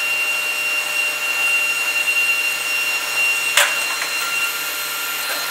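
A steady mechanical whir with a thin, high whine running through it, and one sharp click about three and a half seconds in.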